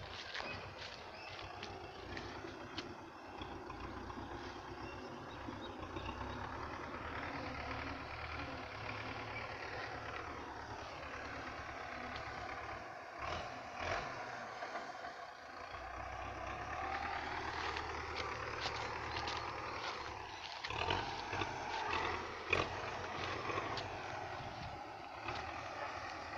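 An engine running steadily, its pitch slowly rising and falling, with scattered knocks and clicks.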